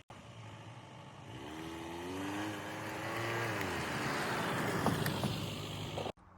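A car driving, its engine and tyre noise growing steadily louder, with an engine note that rises and falls in pitch partway through. The sound cuts off abruptly near the end.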